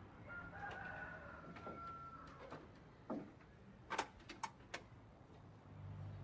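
Buttons on a portable CD/cassette boombox clicking as they are pressed: about five sharp clicks from about three seconds in, the loudest about a second later. Before them, a faint drawn-out high call lasting about two seconds.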